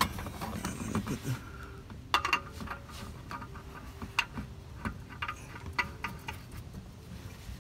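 Irregular light clicks and scrapes of a spin-on oil filter being fitted and threaded onto its mount by hand under the car.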